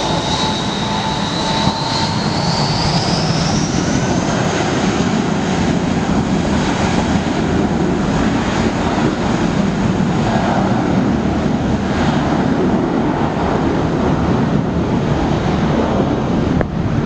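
Airbus A320-232's IAE V2500 turbofan engines at takeoff power during the takeoff roll: a high fan whine rises in pitch over the first four seconds or so as the engines spool up, over a steady jet roar.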